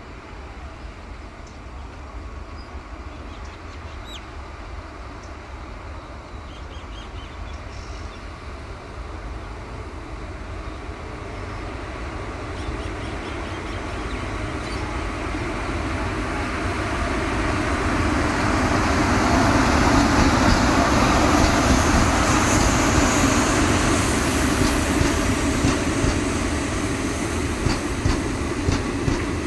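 Indian Railways WAP-4 electric locomotive hauling ICF passenger coaches, coming closer at about 30 km/h and passing close by. A rising rumble of locomotive and wheels on rail peaks as the locomotive goes past, and near the end the coach wheels click regularly over the rail joints.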